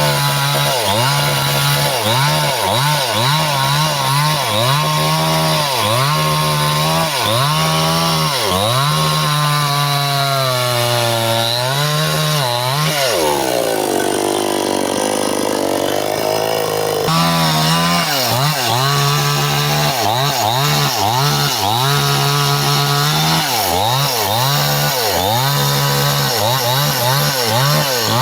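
Stihl two-stroke chainsaw cutting through bendo wood under load, its engine pitch sagging and recovering about once a second as the chain bites. Around the middle it sinks lower and labours for a few seconds before picking up and resuming the rhythm.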